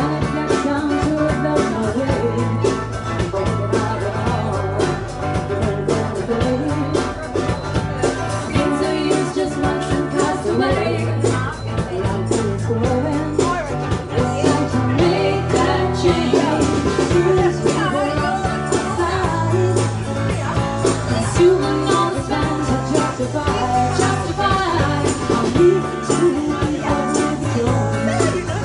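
Live band playing a song: acoustic guitar with a singer on lead vocal.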